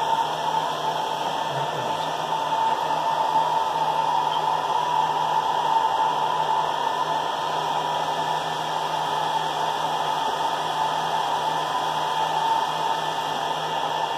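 Hair dryer running steadily: a constant airy rush with a low hum underneath, used to blow-dry a dog's coat.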